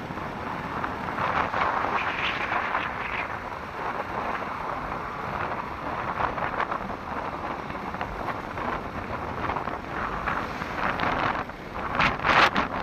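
Heavy rain pouring steadily, with wind buffeting the microphone; a couple of louder gusts come near the end.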